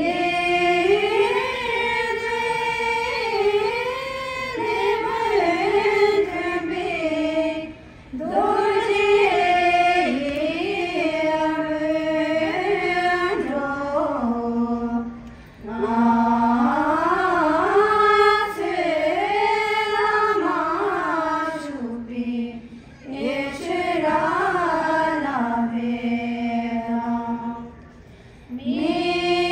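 Melodic Tibetan Buddhist liturgical chanting, sung in unison. The melody rises and falls in phrases of about seven seconds, with a short breath between each.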